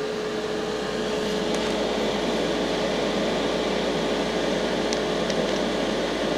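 H180 oxyhydrogen generator running with a steady, even whir, with a few faint ticks.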